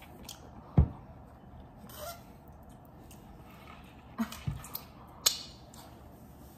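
A loud, short, low thump about a second in, then a few softer knocks around four seconds and a sharp click just after.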